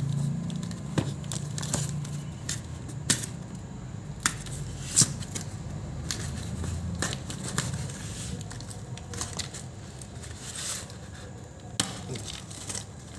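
Cardboard shipping box being torn open by hand: packing tape and cardboard ripping and crackling, with many short sharp rips and taps and the rustle of handling.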